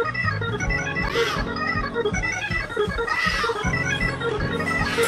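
Organ playing up-tempo praise-break music: quick short chords over a steady pulsing beat.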